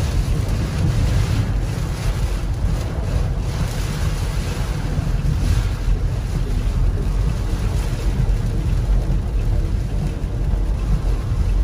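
Thunderstorm rain and wind on a car, heard from inside: a steady loud rumble with a hiss over it that does not let up.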